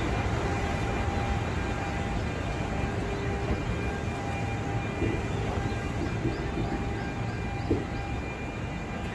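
E233 series electric train at a station platform, its onboard equipment giving a steady hum over a low rumble. One short thud comes near the end.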